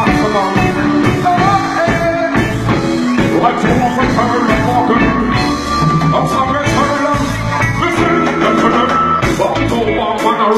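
Loud live band music with a singer, pitched instruments and a steady drum beat.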